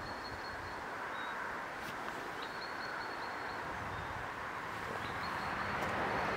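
Outdoor ambience: a steady rushing noise, with a thin, high, steady whistle that comes and goes several times.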